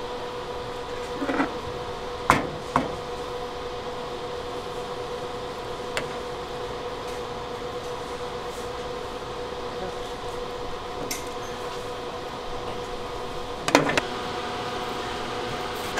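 Metal ladle and utensils clinking and knocking against a stainless steel tray of tteokbokki sauce several times, the loudest knocks about two seconds in and near the end, over a steady hum.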